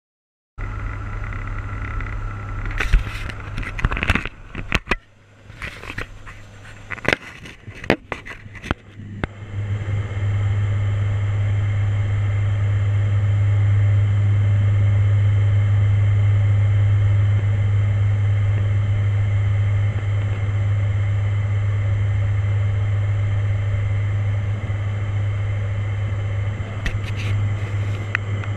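Turboprop airliner's propellers and engines droning inside the cockpit, a steady low hum. Irregular knocks and rattles break it during the first nine seconds before it settles into an even drone.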